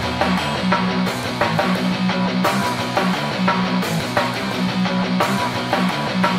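Background rock music: guitar over a steady beat.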